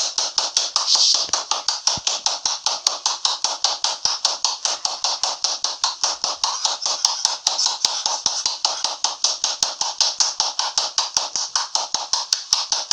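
Rapid, even tapping, several sharp taps a second, that runs without a break.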